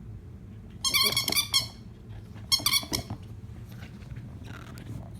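Scottish terrier puppy giving two bursts of rapid, high-pitched yips, the first about a second in and lasting close to a second, the second shorter, a second and a half later.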